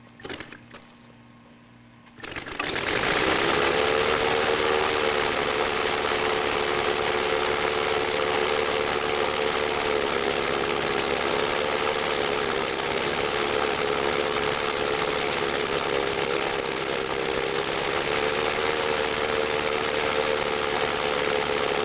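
Hand-built 9-cylinder model radial engine with a 32-inch wooden propeller, hand-propped: it catches about two seconds in and then runs steadily, its pitch wavering slightly.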